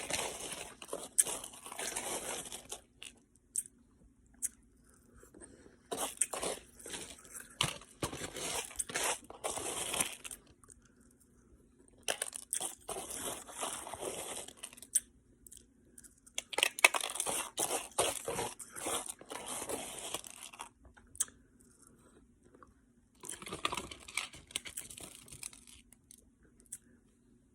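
A person chewing ice, crunching it between the teeth in five bouts of a few seconds each with short pauses between.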